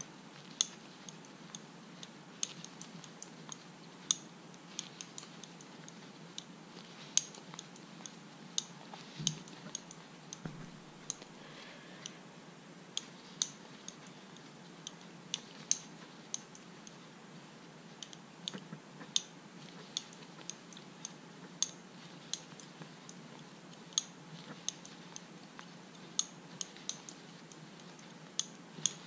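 Short, sharp, irregular clicks, about one or two a second, from a metal crochet hook as double crochet stitches are worked around a yarn circle.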